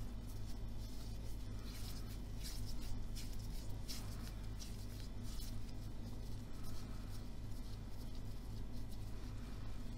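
Soft rustling and faint crinkling as hands fold and roll a piece of soft yeast dough into a round bread roll on a floured plastic-covered worktop, busiest a couple of seconds in. A steady low hum runs underneath.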